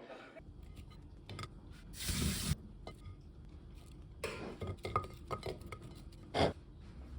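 Scattered light clicks and clinks of objects being handled, with two brief swishing noises and one louder knock near the end.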